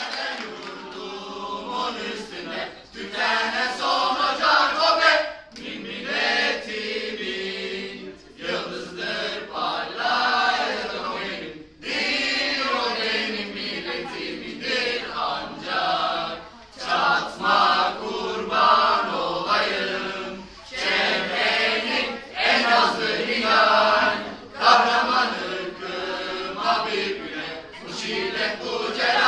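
A small group of people singing together unaccompanied, in phrases of a few seconds with short breaks between them.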